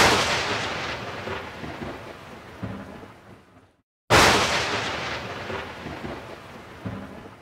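Two loud booms about four seconds apart, each starting suddenly and dying away slowly over about three seconds.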